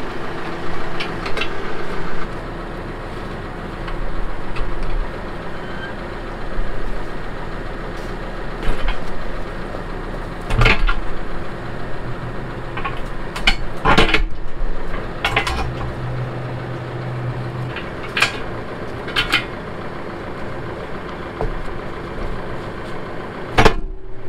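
Tractor engine idling steadily while a three-point rear blade is worked onto the hitch, with half a dozen sharp metal clanks from the pins, links and blade knocking together.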